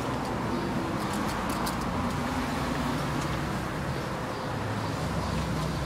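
Steady street traffic noise from passing cars, with a few faint clicks between one and two seconds in.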